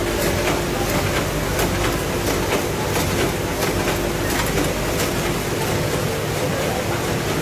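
Snack-packing machinery running: a steady mechanical hum with a stream of clicks and clacks, several a second, from an automatic bagging machine turning out sealed chip packets.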